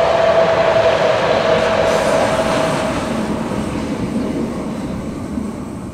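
Two coupled Bernina Railway ABe 4/4 I electric railcars (nos. 30 and 34) running past on the metre-gauge line, with a steady whine that stops about three seconds in. The running noise fades as they move away.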